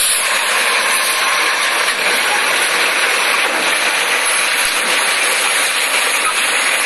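Steady, even rushing hiss from an automated side-loader garbage truck running at the kerb, with no distinct knocks or bangs standing out.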